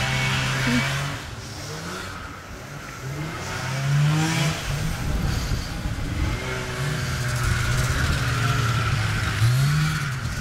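Snowmobile engine running at a steady pitch, then revving up and down repeatedly, its pitch rising and falling several times.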